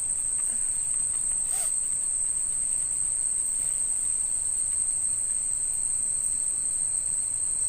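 Steady, unbroken high-pitched drone of night insects in a tropical forest after dusk, with one brief click about one and a half seconds in.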